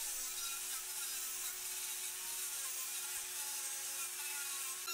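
Angle grinder with an abrasive disc running steadily against a rusty motorcycle fuel tank, stripping the rust in an even grinding hiss.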